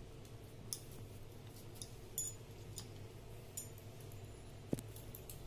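Faint, scattered light clicks and ticks of hands arranging chopped vegetables on a steel plate, with one sharper knock near the end, over a steady low hum.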